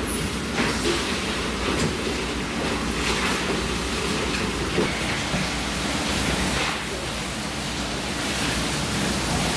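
Steady rushing background noise with a low hum and a few faint clicks.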